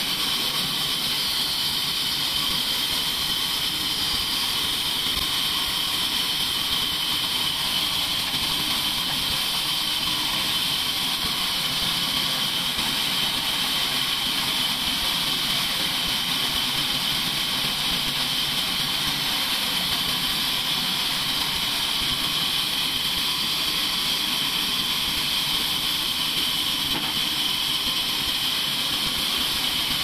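Large vertical band saw of a sawmill running, a steady high-pitched whine over a hiss, unchanging throughout.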